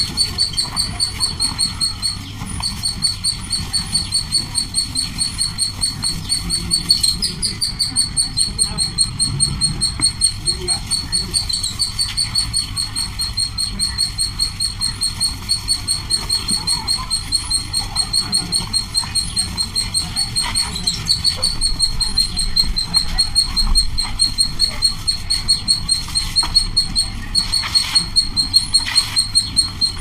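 A bird chirping nonstop in a fast, even series of high chirps on one pitch, about three or four a second.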